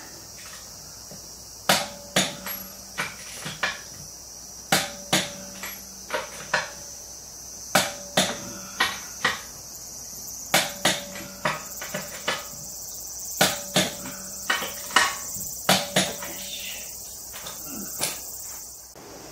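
Sharp metal knocks and clanks from tyre-change work with hand tools on a car wheel, about twenty irregular strikes, each with a short ringing tone, starting about a second and a half in. Insects buzz steadily underneath.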